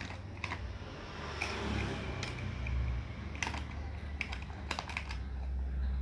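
Large plastic toy building blocks clicking and clattering together as a child's hand rummages through them in a plastic bag. The clicks are sharp and irregular, with a brief crinkle of plastic near the two-second mark.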